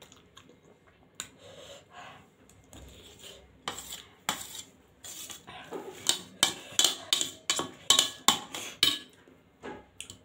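Metal spoon and fork clinking and scraping against a stainless-steel plate while gathering noodles: a run of sharp clicks, sparse at first and much busier from about four seconds in until near the end.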